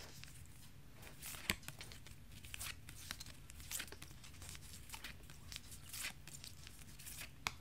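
Faint, scattered rustles and light clicks of K-pop album photocards being handled and shuffled between the fingers.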